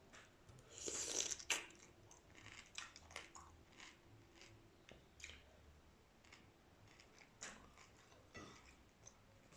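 Close-miked chewing and lip-smacking while eating boiled shrimp with rice: many short, irregular wet clicks and smacks, with a louder burst of noise about a second in.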